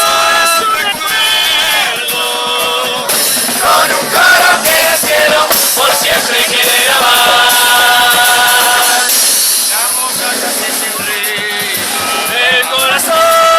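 Murga chorus singing in unison with long held notes, over the murga's percussion of drums and cymbals.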